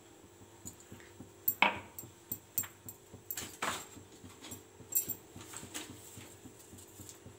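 An animal whining: two short calls sliding down in pitch, about two seconds apart, over a steady low hum and scattered light clicks.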